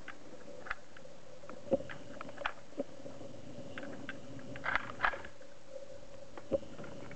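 Faint scattered clicks and light knocks of handling, about seven in all, over a steady faint hum. No gunfire.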